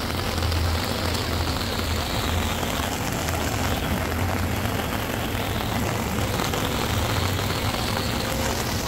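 Heavy rain falling steadily on paving and umbrellas, with a low steady rumble beneath.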